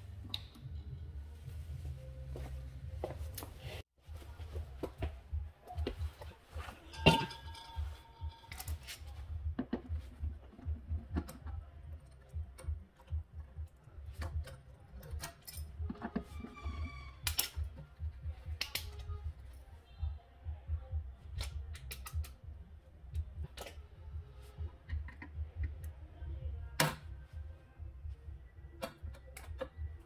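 Scattered metallic clicks and clinks of hand tools and parts being handled in a refrigerator's compressor compartment, over a low steady rumble, with a sharper knock about seven seconds in and another near the end.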